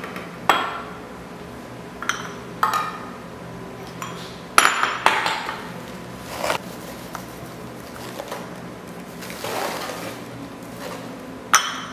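Sharp clinks of a metal cup and small glass bowls knocking against each other and the countertop, about half a dozen scattered through, as boiled purple cabbage liquid is poured into the bowls. A short soft rushing sound comes near the end.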